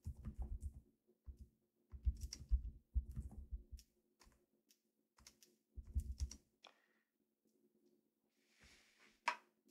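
Faint computer keyboard typing: four short runs of keystrokes with pauses between them as a name is typed in.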